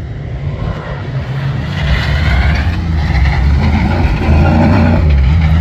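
Off-road competition vehicle's engine running under throttle, getting louder about two seconds in and then holding strong with its pitch rising and falling.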